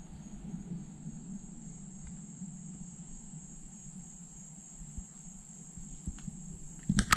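Insects trilling in one steady high-pitched drone, over a low steady hum, with a brief sharp knock near the end.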